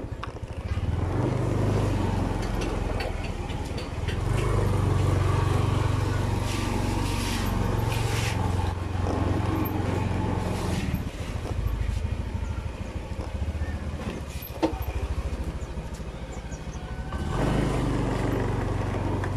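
Small motor scooter engine running while being ridden, its note swelling and easing off with the throttle. There is a single sharp click a little past the middle.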